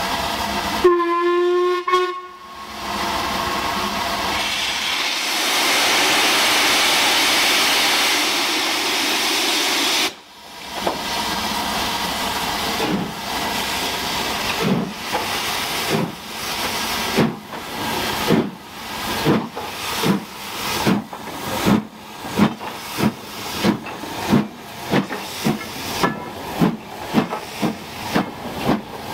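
LMS Stanier Black Five two-cylinder 4-6-0 steam locomotive sounding a short whistle about a second in, then a loud steady hiss of steam from its open cylinder drain cocks as it starts away. From about halfway its exhaust beats come in, quickening from about one to about two a second as the engine gathers speed.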